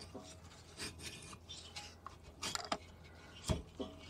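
Handling noises from a just-removed moped cylinder barrel being lifted and turned in gloved hands: a few scattered light clicks and knocks of metal parts, the loudest a dull knock about three and a half seconds in.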